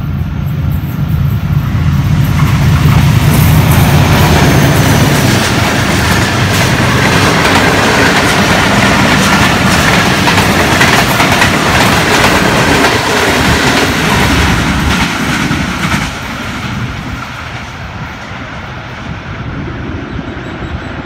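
Diesel-hauled passenger train passing through the station at speed without stopping. The locomotive's engine drone comes first, then the coaches' wheels clatter over the rail joints for about ten seconds. The sound drops off sharply about sixteen seconds in as the last coach passes and the train draws away.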